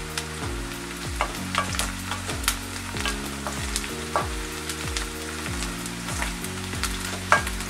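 Sliced onions and curry leaves frying in oil in a metal kadai: a steady sizzle, with a wooden spatula stirring and scraping against the pan several times, the sharpest knock near the end. Soft background music with low notes runs underneath.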